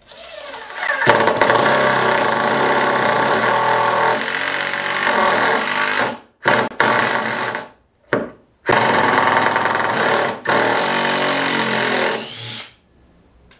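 Hitachi WH10DFL 12-volt compact impact driver running under the trigger in several bursts: one long run of about five seconds whose pitch climbs as it spins up, a couple of short blips, then two more runs of about two seconds each.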